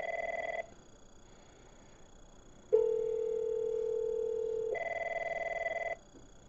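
Avaya 9508 desk phones ringing with an incoming call: a warbling electronic ring in short bursts, one ending about half a second in and another about five seconds in. Between them comes a steady, lower ringback tone lasting about two seconds, from the calling line.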